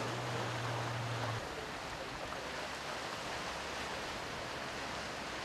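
Outboard motor of a rigid inflatable boat droning at a distance, its pitch dropping then holding steady before it stops about a second and a half in, over a steady rush of sea noise.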